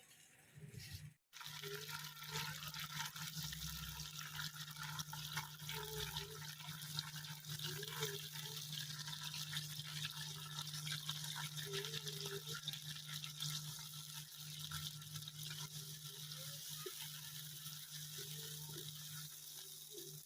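Heavy rain falling steadily: a dense, even hiss full of fine drop ticks, with a steady low hum underneath. It starts about a second in.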